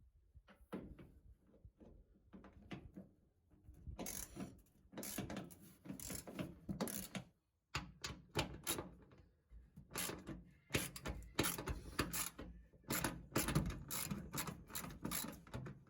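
Ratchet wrench clicking in quick runs with short pauses while the hood hinge bolts are backed out, with some metallic knocks of hardware.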